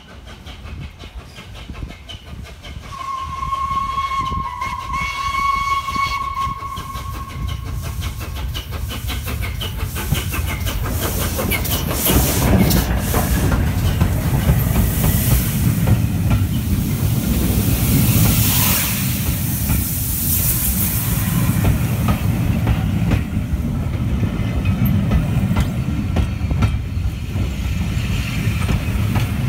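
LNER A3 Pacific steam locomotive Flying Scotsman sounding one long whistle for about four seconds, then passing close by with hissing steam. The rumble and clatter of its coaches rolling past follows.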